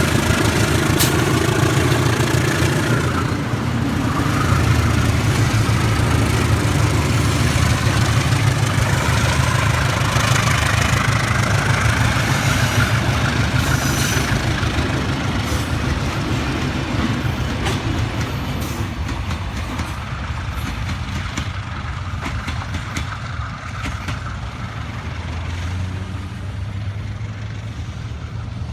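Diesel-electric locomotive and its train passing: a steady low engine drone with rumbling wheel-on-rail noise and scattered clicks, fading gradually over the second half as the train moves away.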